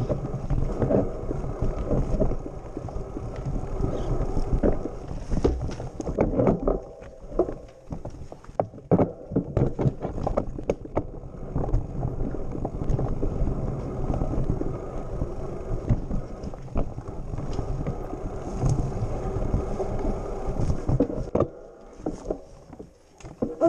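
Mountain bike rolling down a rocky dirt trail: a steady rumble of knobby tyres on dirt with frequent rattles and knocks as the bike goes over rocks and bumps, quieter near the end as it slows.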